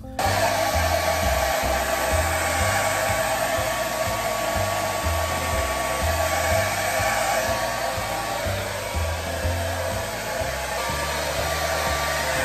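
Handheld hair dryer blowing at a steady rush with a faint whine, switched on suddenly at the start.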